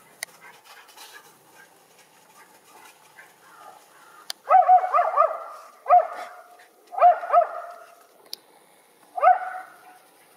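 Small dog, a Schipperke, barking high and sharp in four bouts. The first, about halfway in, is a quick run of several barks, and one or two barks follow about a second apart.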